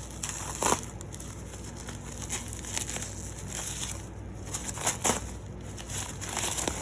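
Earbud packaging being handled and opened by hand: plastic and cardboard crinkling and crackling, with a few sharp clicks or knocks, the loudest about a second in and near five seconds in.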